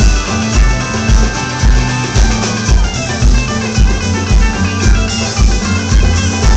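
Rock band playing live: guitars over a drum kit, with a steady kick-drum beat about twice a second.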